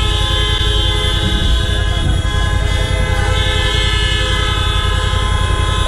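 Car horns sounding steadily in a traffic jam, held without a break, over the low rumble of traffic.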